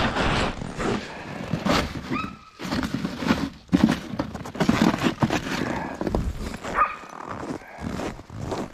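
Sled dogs whining briefly twice, about two seconds in and again near seven seconds, waiting to be fed. Around them are the rustle and scuff of gloved handling and footsteps on hard, cold snow.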